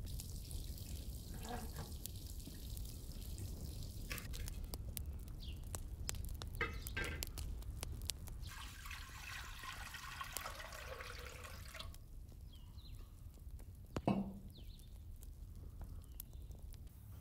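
Wood fire crackling under a pot, with water trickling and dripping as an aluminium pot of water is set on the fire, and one sharp knock about three seconds before the end.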